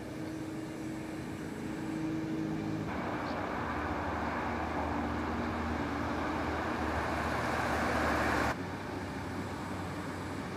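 Steady motor-vehicle noise with a low hum. From about three seconds in, a louder, even rushing noise is layered over it, and it cuts off abruptly about two seconds before the end.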